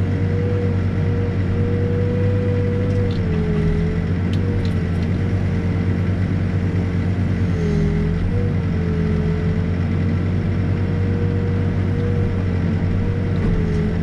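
Backhoe's diesel engine running steadily under digging load, with a steady whine above the engine note that sags briefly in pitch about three times as the boom and bucket work the footing trench.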